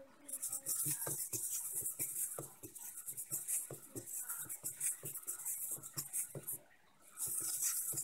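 Twelve SG90 metal-gear micro servos of a small four-legged walking robot whirring in short bursts as it steps, with its feet lightly tapping and scuffing on a wooden floor. The whirring pauses briefly about seven seconds in.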